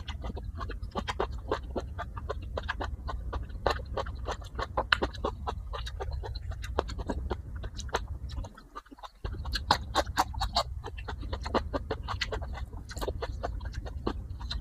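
Close-up eating sounds: crunchy chewing of raw vegetables and fried catfish, with many quick wet mouth smacks and clicks in an uneven rhythm over a steady low hum. The sound drops out briefly about eight and a half seconds in.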